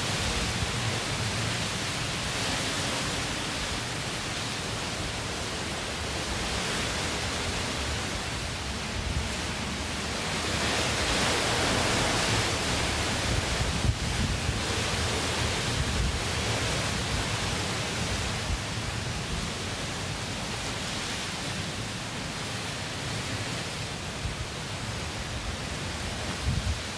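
Hurricane-force wind rushing steadily, swelling in a stronger gust about ten seconds in and easing a few seconds later, with a low uneven rumble of wind buffeting the microphone.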